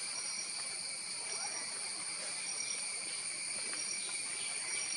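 Steady chorus of insects, several high-pitched drones held level throughout, with a short high chirp repeating about once a second.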